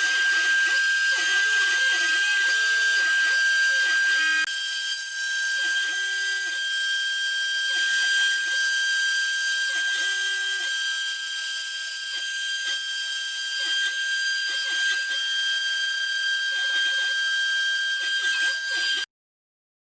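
DIY CNC router at work on plywood: the spindle holds a steady high whine while the stepper motors hum in short tones that jump between pitches as the axes change direction. Cuts off abruptly near the end.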